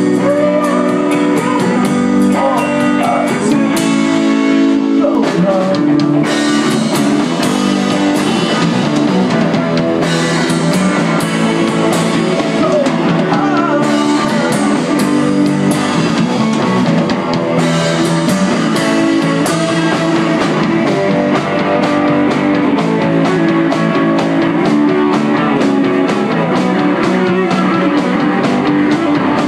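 Live band playing on electric guitars, bass guitar and drum kit, with a man singing at the microphone.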